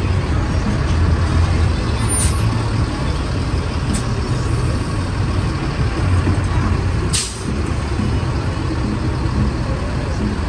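City street traffic: a heavy vehicle's engine rumbling low and steadily, with short sharp hisses about two and four seconds in and a stronger one about seven seconds in.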